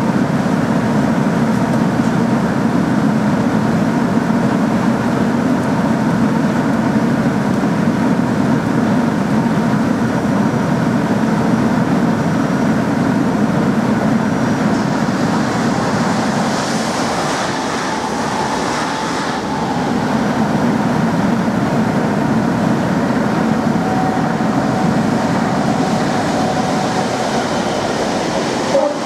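EWS Class 66 diesel locomotive working hard with a freight train of loaded hopper wagons, which rumble steadily along the rails. A rush of higher-pitched noise about halfway through comes from a Class 365 electric multiple unit passing on the next line.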